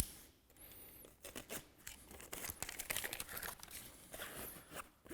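Faint crinkling and rustling of plastic film being handled: adhesive tape and its release liner on a roof underlay membrane, with small tearing and peeling noises.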